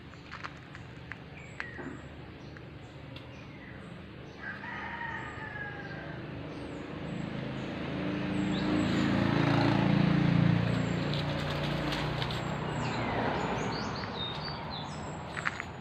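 A rooster crows once, about four to six seconds in, and small birds chirp at a high pitch. In the middle a louder low rumble swells and fades, peaking about ten seconds in.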